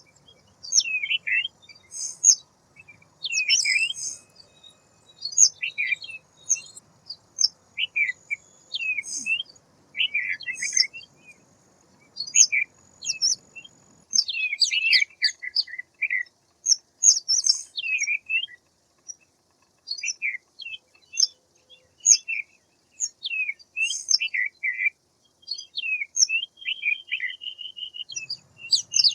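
White wagtail calling and twittering: a quick run of short, sharp chirps with brief pauses between them, and a short steady trill near the end.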